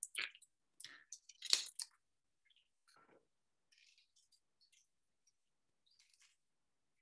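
A few short clicks and rustles of something being handled, the loudest about a second and a half in, then near silence.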